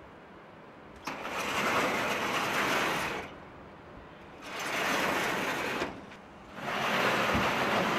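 Large corrugated metal sliding door rolling along its track in three pushes, each a rumble of one and a half to two seconds with short pauses between.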